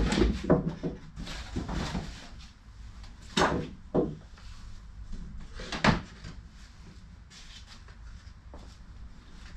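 A series of knocks and clunks from things being handled, moved and set down in a garage workshop. The louder ones come a little over three seconds in, at about four seconds, and near six seconds, with softer rattles between them.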